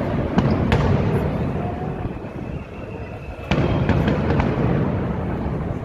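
Fireworks exploding overhead: two sharp bangs near the start, then a louder run of bangs and crackling beginning about three and a half seconds in.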